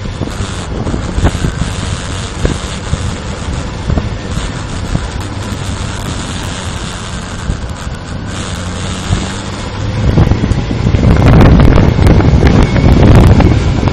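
Honda CB400 motorcycle engine running steadily while riding, under wind noise on the microphone. About ten seconds in the wind noise gets much louder.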